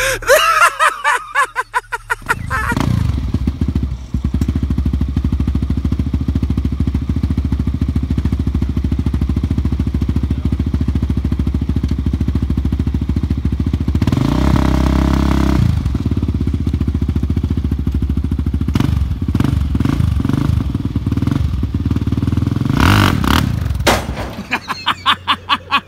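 Sport ATV (quad) engine idling steadily, revved up and back down about halfway through, then blipped in short bursts as the rider lifts the front wheels to climb onto a flatbed trailer; the engine sound ends a couple of seconds before the end.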